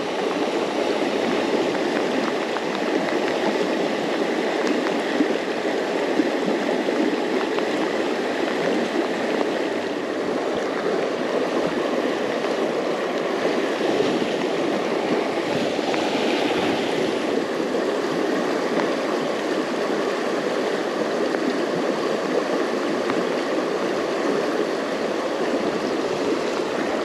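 Fast-flowing river water rushing over a shallow, rocky riffle close by: a steady, even rush.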